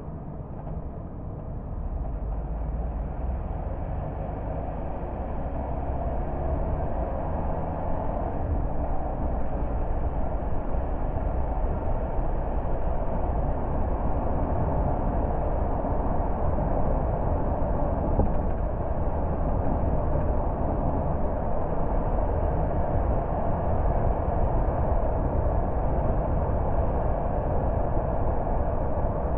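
Car driving on a road: a steady low rumble of engine and tyre noise that grows louder over the first several seconds, then holds steady.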